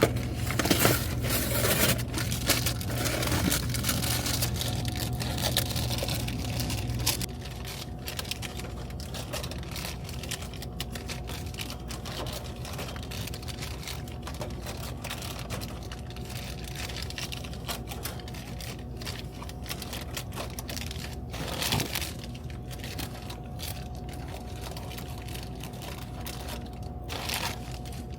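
Snack packages crinkling and rustling with scattered small clicks as a vending machine is restocked by hand, over a steady low hum.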